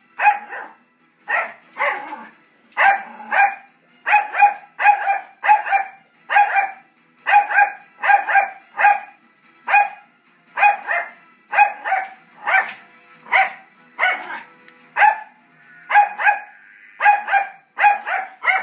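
Yorkshire terrier barking at a television: short, high-pitched barks in a steady string, about two a second.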